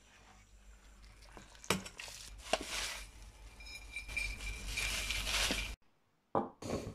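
Kitchen clatter: dishes and utensils clinking, with two sharp knocks, then a steady hiss lasting a few seconds that cuts off suddenly near the end.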